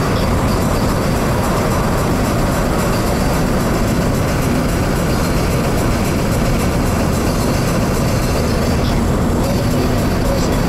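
Steady road and engine noise inside the cabin of a 2006 Opel Astra Coupé Bertone Edition with a 2.0-litre engine, cruising along an open road.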